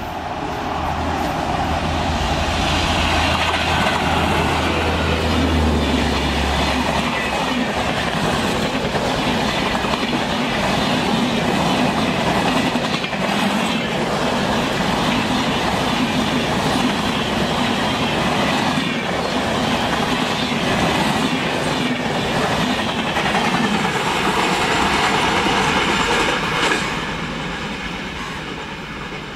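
WAP-4 electric locomotive and its passenger train passing at speed. A low hum comes in the first six or seven seconds as the locomotive goes by, then a steady rumble and clickety-clack from the coach wheels runs on, fading near the end as the train draws away.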